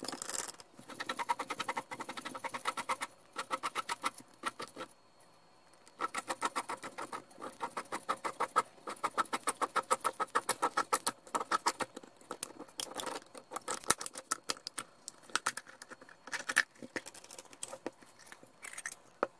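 Oil filter can cutter scoring through a Fram oil filter's steel can as the filter is turned by hand: a rapid, rattling run of clicks and metallic scraping, several a second, in spells with a couple of brief pauses.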